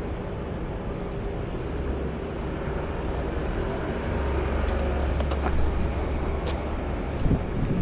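Outdoor city street ambience carried by a low, steady rumble of passing vehicles, which swells about four seconds in, with a few sharp clicks and taps near the end.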